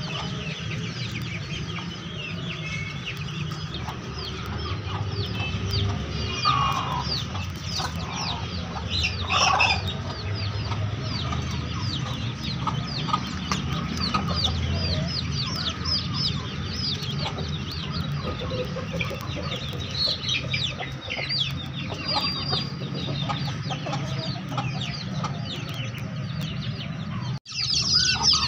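A flock of chickens clucking, with young chicks peeping over it in many short, falling chirps.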